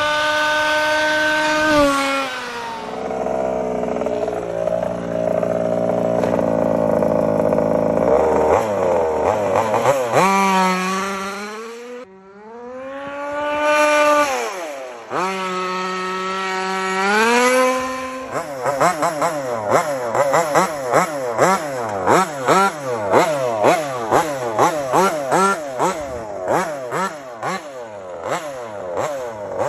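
Taylor RC 35cc two-stroke gas engine of a 1/5-scale MCD XS5 Max RC car, running at high steady revs, dropping back, then climbing again. There is a brief cut about twelve seconds in. From about eighteen seconds on, the engine is blipped in quick rev bursts, about two a second.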